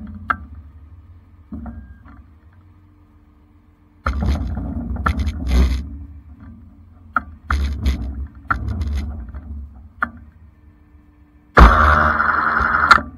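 Rollback wrecker's winch and hydraulics working in three short pulls, each a burst of low mechanical rumble with a faint whine, as the rolled-over pickup is drawn in.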